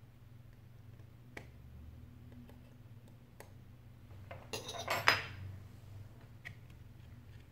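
A brief clatter of small hard knocks about four and a half to five seconds in as the iPhone 8 Plus's metal-framed rear housing, with its board and battery inside, is handled and set down on the work mat against the display assembly. A few faint single clicks come before it.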